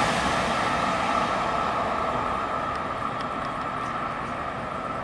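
TGV Réseau Duplex high-speed train pulling away after passing, its rolling noise fading steadily as it recedes, with a steady high tone lingering in it.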